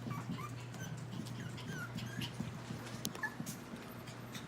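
Chihuahua puppies squeaking and whimpering in many short, high chirps, with a few scattered clicks and a steady low hum underneath.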